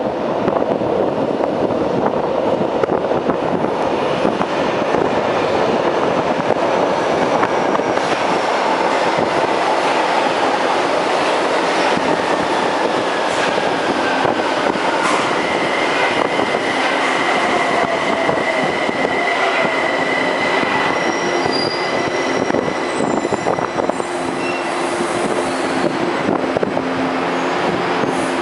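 São Paulo Metro subway train running into an underground station and slowing to a stop, loud throughout. A whine falls in pitch as it slows, then a steady high tone and short high squeals of the wheels and brakes come near the end.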